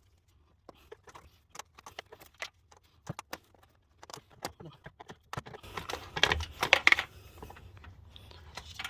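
Scattered metal clicks and knocks, then a louder spell of scraping and rattling about five to seven seconds in, as a starter motor is worked loose and pulled out of a cramped engine bay.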